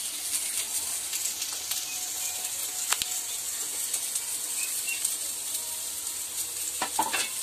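Chopped onions and curry leaves sizzling in hot oil in a steel kadai: a steady frying hiss with faint crackles. A single sharp click comes about three seconds in.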